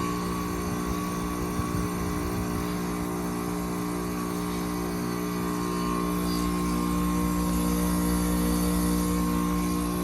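Gibson heat pump outdoor unit running with a steady mechanical hum from its compressor, made of several steady tones over a low rumble and hiss.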